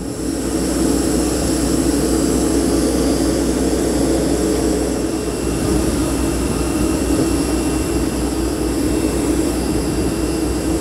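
Jet aircraft running on the ground: a steady, loud rumble with thin, steady, high whining tones over it.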